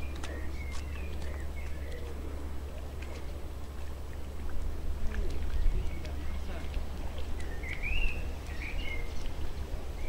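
Outdoor ambience: a steady low wind rumble on the microphone, with birds chirping now and then, most clearly about eight seconds in, and faint voices in the background.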